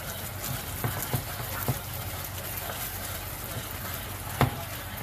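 Pork steak simmering in a saucy skillet, a steady sizzle, with several knocks of a wooden spatula against the pan as the meat is stirred; the loudest knock comes about four and a half seconds in.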